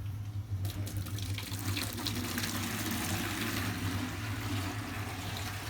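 Water gushing from a hose into a pail, starting about half a second in, over a steady low hum. The water is being let out of the hot-water heating system to bring its pressure down.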